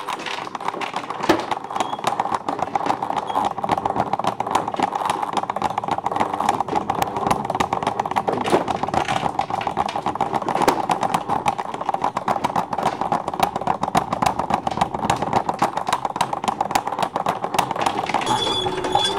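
A kinetic machine's roller chain and large rusty toothed wheel turning, a steady rapid metallic clatter of chain links and teeth.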